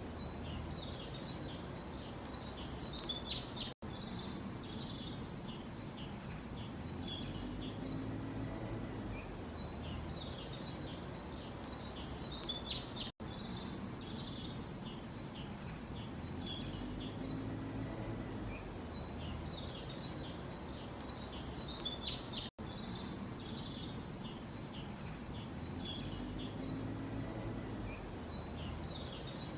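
Several small birds chirping and trilling in quick, high calls over a steady low background rumble. The same stretch of birdsong repeats about every nine seconds, each time broken by a brief gap where the recording loops.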